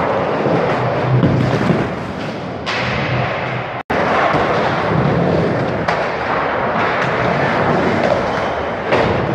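Skateboard wheels rolling and boards thudding on skatepark ramps, echoing in an indoor hall over a steady din. The sound cuts out for an instant about four seconds in.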